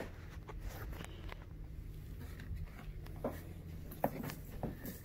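Low steady hum under scattered light clicks and knocks of handling and movement.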